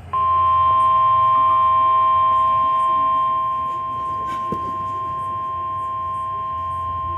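Weather radio warning alarm tone: one steady, high-pitched tone that starts abruptly and holds unbroken, a little softer after about three and a half seconds. It is the attention signal that comes before a new warning message.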